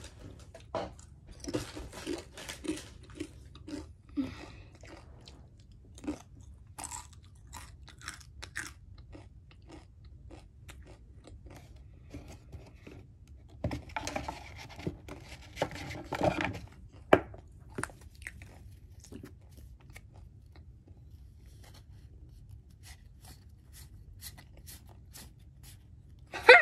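Close-up crunching and crinkling, made of many short irregular clicks and crackles, busiest about halfway through, with a run of faint ticks near the end.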